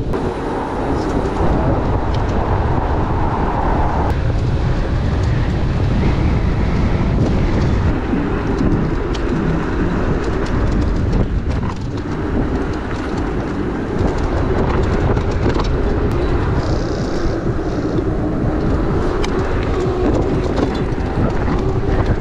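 Steady wind rush and tyre rumble from riding an Onyx RCR electric motorbike along a paved path, with a faint whine that wanders up and down in pitch.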